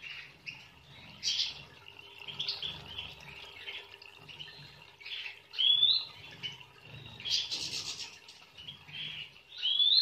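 European goldfinches chirping and twittering: a busy run of short, high calls with a couple of rising notes.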